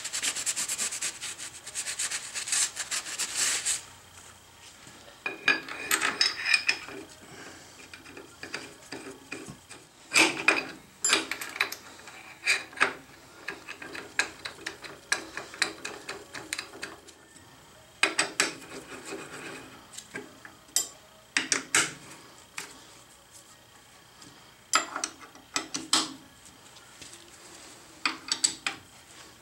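A shop rag rubbing over the lathe's cross slide for about the first four seconds, then scattered clinks and scrapes of small metal parts and tools being handled on the carriage.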